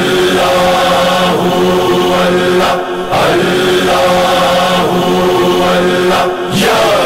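Chorus of voices chanting a manqabat intro in long held phrases over a steady low hum, breaking briefly about three seconds in and again near the end.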